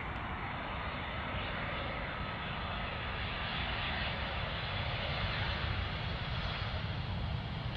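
Boeing 747-400 freighter's jet engines on approach, a steady rumbling roar that slowly grows louder as the aircraft comes closer.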